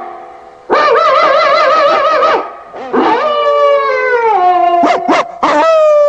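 A cartoon hound howling. It gives a long wavering howl, then a second howl that falls in pitch, two short barks, and a third long howl that sinks slowly.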